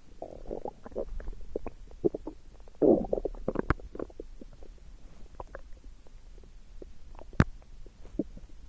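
Human stomach gurgling and rumbling: irregular bubbling gurgles and sharp little pops, with a louder gurgle about three seconds in and a single sharp pop a little after seven seconds.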